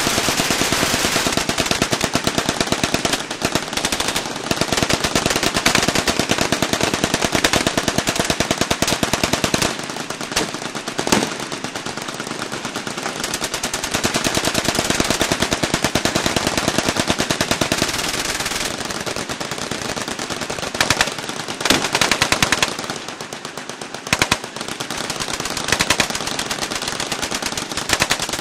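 Machine guns firing long bursts of automatic fire, one running into the next almost without a break, with only brief dips in the shooting.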